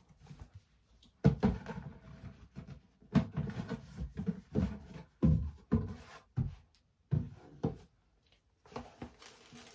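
A stiff cardboard gift box being handled: set down on a counter and its snug lid worked off, a series of about nine dull thumps and scraping rubs.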